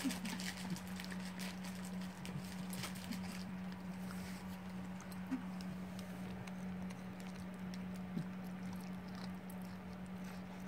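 An old dog with only four teeth chewing a treat: faint, irregular wet smacks and clicks, most frequent in the first few seconds. A steady low hum runs underneath.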